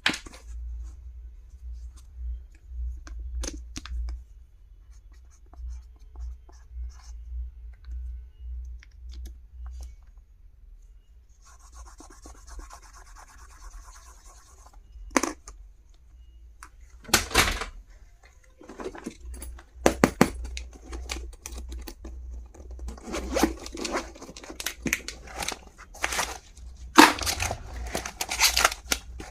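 Packaging being handled and torn open during an unboxing: rustling, rubbing and tearing with scattered clicks and taps. It is sparse at first and gets busier and louder in the second half.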